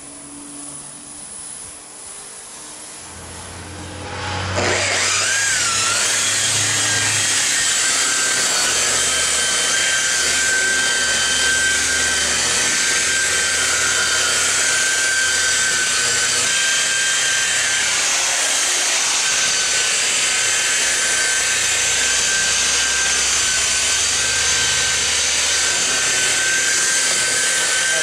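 Corded rotary polisher starting up about four seconds in. Its whine rises and settles into a steady high tone, then it runs steadily as the buffing pad works polishing compound over a painted baler panel.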